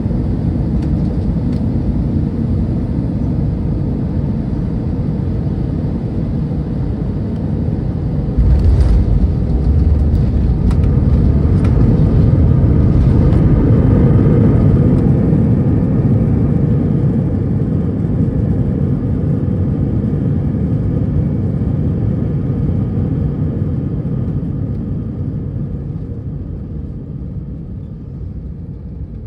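Cabin noise of an Airbus A319-100 heard from over the wing: a steady rush of engines and airflow on short final, then touchdown about eight seconds in with a sudden jump to a loud low rumble. The rumble builds for several seconds and then slowly fades as the jet slows on the runway rollout.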